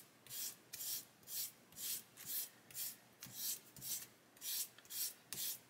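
Worn 400-grit sanding stick stroked over a brass photo-etch fret, a steady rhythm of about two scratchy strokes a second. It is scuffing the etched parts to clean them and give the etch primer a key.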